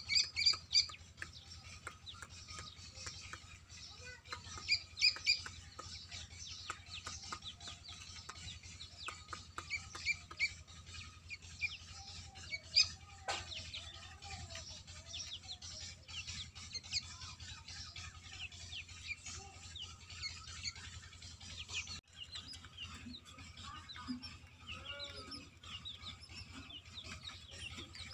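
A crowd of caged black francolin chicks peeping: many short, high chirps overlapping continuously, over a steady low hum.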